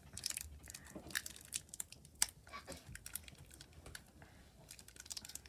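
Candy wrapper crinkling and tearing as it is worked open by hand: irregular small crackles and clicks, the sharpest about two seconds in.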